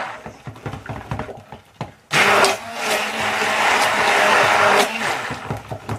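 Handheld stick blender running in a plastic jug of cold-process soap batter, mixing in colour, in one steady burst of about three seconds starting about two seconds in. Before it come quieter knocks against the jug.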